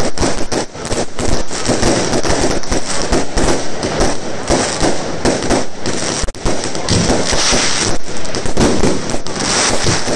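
Fireworks going off in a dense, continuous barrage of bangs and crackling, from aerial shells and ground-launched comets.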